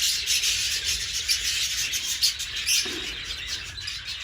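A flock of small aviary birds chirping and chattering continuously, over a steady rustling hiss.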